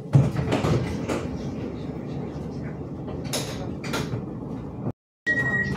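Inside a Hyundai Rotem 142N tram at a stop: irregular mechanical clatter from the doors, with two sharp clicks in the middle. After a brief dropout near the end, the high door warning beep starts.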